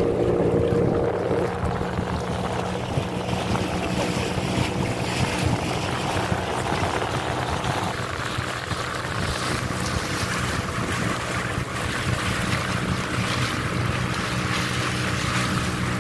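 A motorboat's engine runs at a steady speed while the boat is under way, with water hissing along the hull.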